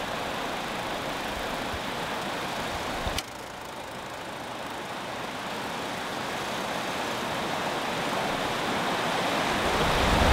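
Steady rushing of river rapids, cut off with a click about three seconds in. A rushing noise then swells gradually toward the end.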